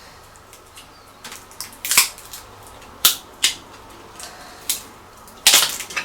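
Sharp, irregular clicks and taps of small tools and parts being handled on the open MacBook Pro, about half a dozen in all, with the loudest about two seconds in and a cluster near the end.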